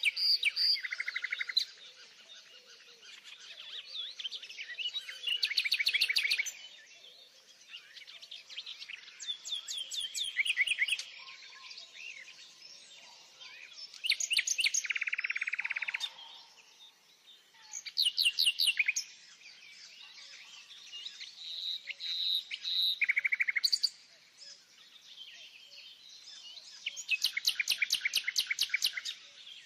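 Songbirds singing: short, bright trilled phrases of rapid notes every few seconds, with faint chirps in between.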